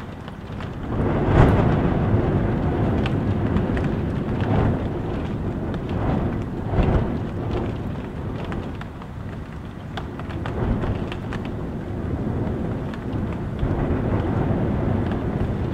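Gusting wind and heavy rain heard from inside a house: a low rushing that swells and falls in gusts, the strongest about a second and a half in, with the tapping of raindrops over it.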